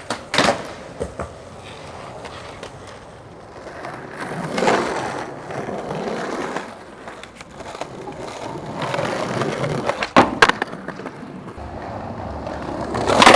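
Skateboard wheels rolling over pavement, the noise swelling and fading as the board passes, with sharp clacks of the board popping and landing, the loudest near the end.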